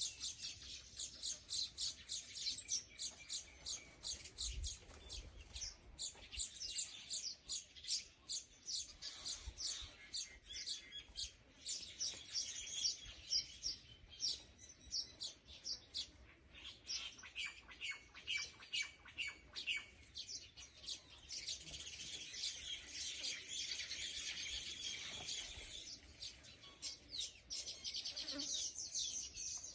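Small birds chirping: a dense, continuous run of rapid, high-pitched chirps and twitters.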